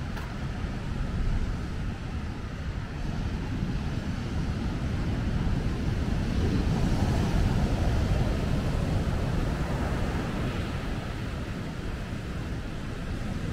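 Ocean surf on a wild Atlantic beach mixed with wind buffeting the microphone, a steady low rumbling wash that swells louder about halfway through.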